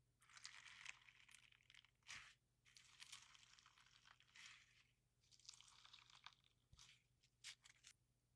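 Crunchy slime being squeezed and pressed by hand, giving four short bursts of fine crackling crunches with a few sharp clicks between them.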